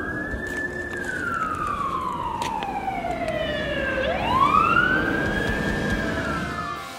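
Fire engine siren wailing in slow sweeps: it rises to a high pitch, falls over about three seconds, and climbs again about four seconds in.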